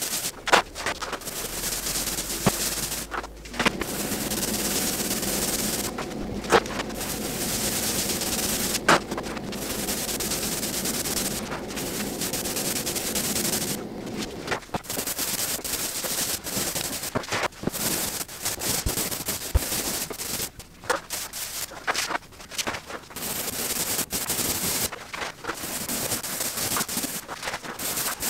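Paint roller rolling wet paint onto a wall, a steady sticky crackle in passes of a few seconds, broken by short pauses where the roller is lifted, with occasional sharp clicks.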